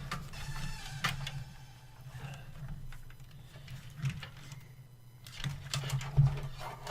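Scattered clicks and knocks from handling PC parts and cables, likely fan connectors being plugged in, over a steady low hum. A louder thump comes about six seconds in.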